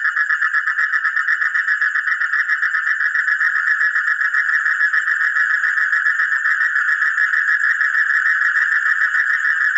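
An animal calling in a rapid, steady pulsing trill, about eight pulses a second, unbroken throughout.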